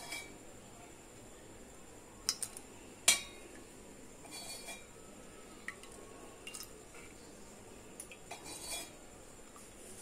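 Scattered sharp clinks and knocks of kitchen utensils against a pan while cooking oil is poured in, the loudest about three seconds in.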